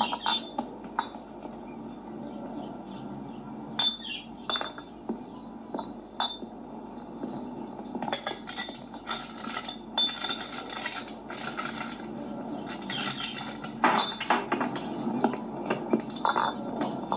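Glass bottles clinking against each other as they are handled: a few single clinks at first, then denser clattering from about eight seconds in.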